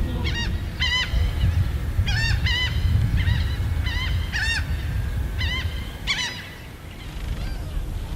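A large bird, goose-like, giving about nine short, arched calls in quick pairs and groups over some six seconds, then falling silent. A steady low rumble lies underneath throughout.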